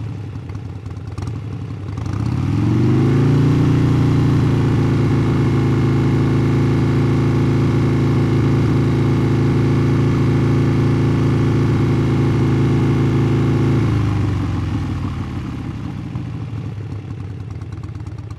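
Motorcycle engine idling, then brought up about two seconds in to a steady higher speed that is held for about eleven seconds before it drops back to idle. It is shut off right at the end.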